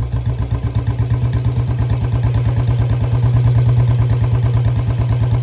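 Royal Enfield Bullet 350's single-cylinder engine running in gear with the rear wheel spinning, a steady fast even beat, over the noise of its dry, unlubricated drive chain.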